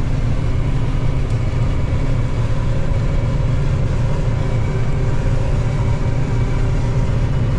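John Deere 9450 combine's diesel engine and machinery running steadily, heard from inside the cab as the combine turns at the headland out of the crop: a constant low hum with steady tones over it.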